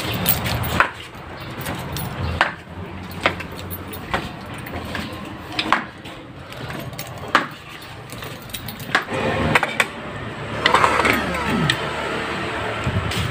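Knocks and bumps from someone walking with a handheld phone, about one every second or so, over a steady low hum. Near the end comes a short cluster of higher, sliding sounds.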